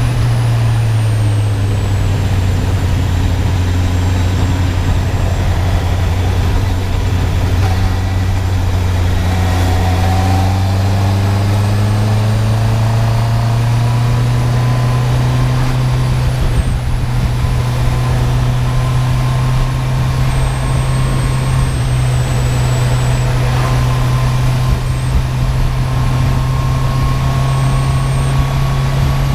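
Honda CB650R inline-four motorcycle engine with its stock exhaust, running steadily. Its note dips slightly about a second in, then climbs gradually through the middle and edges up again near the end.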